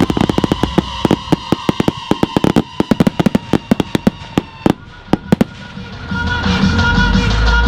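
Consumer fireworks going off in a rapid, uneven string of sharp reports, several a second, that thin out and stop after about five seconds. Show music with a heavy bass comes up near the end.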